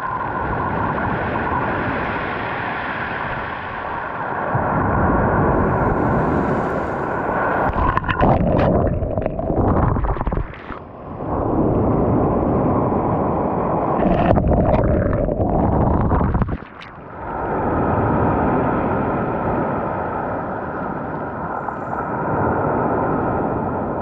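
Waves breaking and washing up over a pebble beach close to the microphone, a loud, continuous rush of surf and foam. The rush drops away sharply twice, near the middle and about two-thirds through, with sharp crackling splashes just before each drop.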